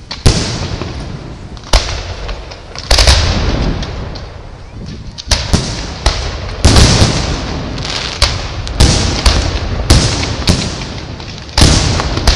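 Aerial firework shells bursting overhead in quick succession: more than a dozen sharp bangs, some close together, each trailing off in a hiss as the stars burn and fall.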